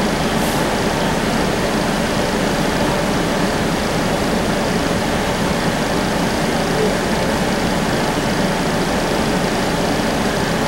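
Steady running noise of a Cincinnati Bell Connector streetcar, heard from inside the passenger cabin.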